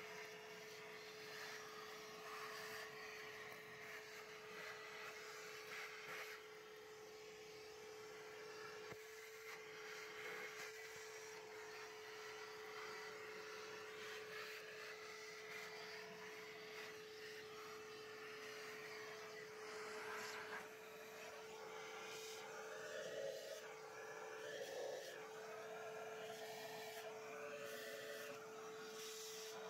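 Milwaukee M18 cordless shop vacuum running with a steady motor whine, its hose nozzle sucking debris out of an engine's open intake ports and valley, the hiss of the airflow shifting as the nozzle moves.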